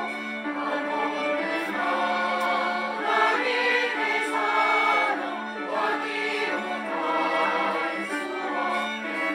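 Church choir singing a hymn in held chords, the voices moving from chord to chord over a steady low note.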